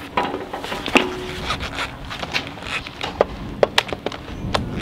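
Scattered knocks and clanks on a steel boat deck with boot footsteps as a welder moves about with a MIG torch and its cable; one knock about a second in rings briefly like struck metal.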